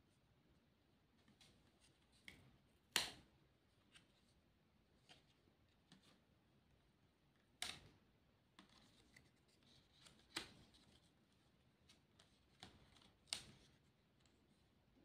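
Fingers handling and pressing paper sticker pieces onto a paper plate: scattered soft taps and paper rustles, with four sharper clicks spread through.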